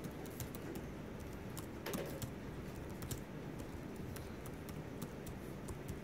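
Faint, scattered clicking of computer keys being typed on, over a steady low room hum.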